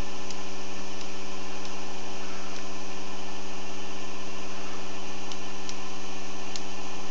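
Experimental Bedini-style pulse motor running on its pulsed coils: a steady electrical hum with a few faint ticks.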